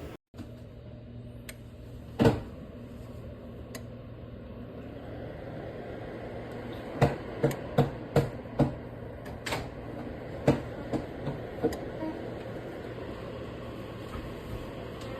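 Small electric fan running with a steady low hum, with one sharp click early and a run of sharp clicks or knocks in the middle.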